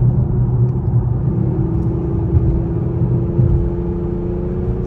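Road and engine noise inside the cabin of an Infiniti M37S driving at highway speed: a steady low rumble, with a faint engine tone rising slightly from about a second in.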